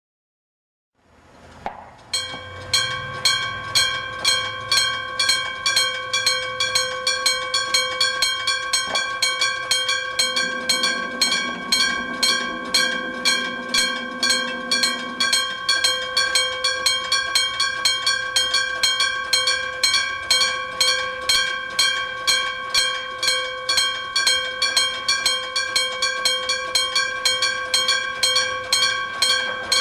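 Electric-bell (denshō) railway level-crossing alarms ringing in fast, regular strikes, with both sides' bells going. They start about two seconds in.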